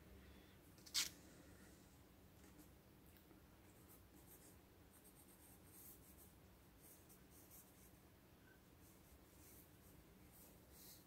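Pencil sketching on cold-press watercolour paper: faint, light scratching strokes, with one short sharp click about a second in.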